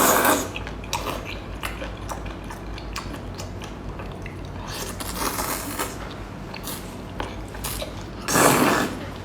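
Close-miked eating: a person chewing and biting octopus noodles, with small wet clicks throughout and a louder noisy burst about eight seconds in.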